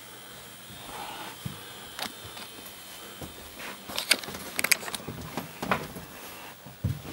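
Scattered light knocks and clicks of people moving about indoors, with a quick run of sharp clicks about four to five seconds in.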